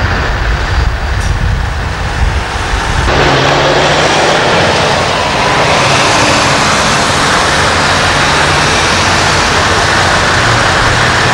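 A low rumble, then, after an abrupt change about three seconds in, a large diesel truck engine running steadily and loudly close by.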